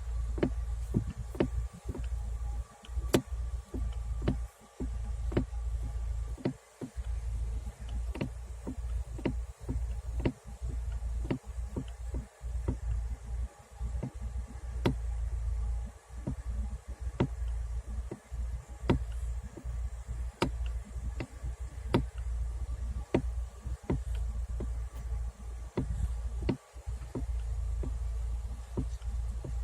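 Sharp knocks, irregular at about one to two a second, over a steady low hum.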